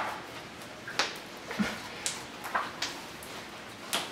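Several light clicks and knocks, about one every half second, with a slightly heavier thud about one and a half seconds in: small objects being handled on a kitchen counter.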